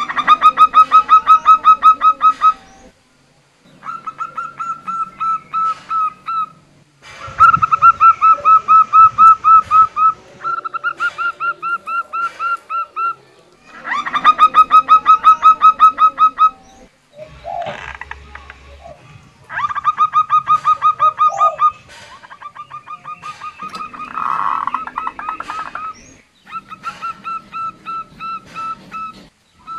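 A caged female zebra dove (perkutut) calling: bursts of rapid staccato notes, each run lasting two to three seconds, repeated with short pauses between them.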